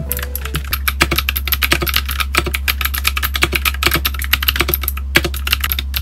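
Fast typing on an Akko Hello Kitty 3096 mechanical keyboard: a rapid, continuous run of key clacks with a brief pause about five seconds in, over background music.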